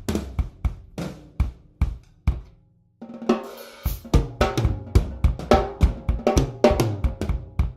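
Acoustic drum kit played: kick, snare, toms and hi-hat. The playing dies away about two and a half seconds in, there is a brief silence, and a new passage starts abruptly at about three seconds.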